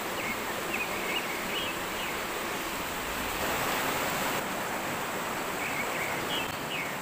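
River water rushing over boulders in small rapids: a steady hiss of flowing water, with a few faint high chirps about a second in and again near the end.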